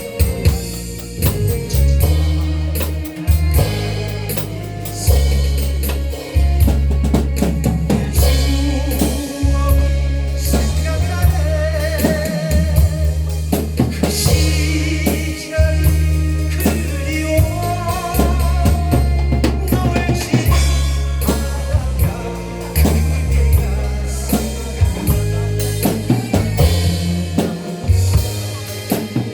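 Song with a steady drum-kit beat and heavy bass, with a voice singing over it, held notes wavering with vibrato through the middle.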